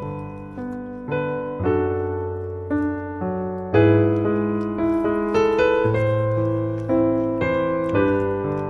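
Background music on solo piano: chords struck about once a second, each dying away before the next, with the loudest chord a little under four seconds in.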